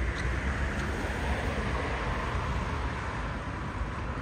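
Outdoor city street noise: a passing road vehicle's hiss swells and fades in the middle, over a steady low rumble.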